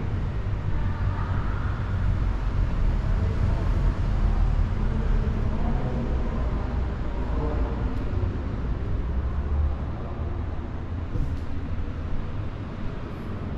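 Steady low rumbling background noise that eases slightly about ten seconds in.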